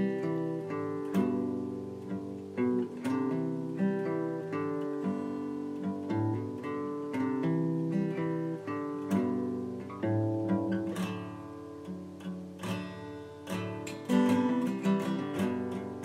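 Intro music: an acoustic guitar playing a run of plucked and strummed notes that ring and fade, growing a little louder near the end.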